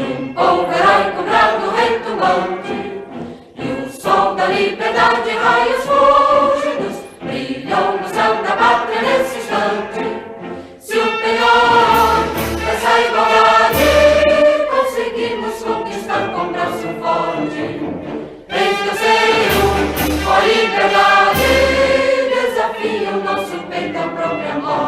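Choir singing with an orchestra, a solemn anthem-style piece; low drum strikes come in several times in the second half.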